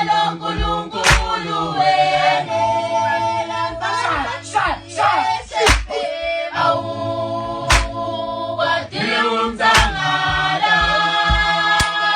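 Vocal music: several voices singing in harmony, with long held notes over deep drum hits every second or two.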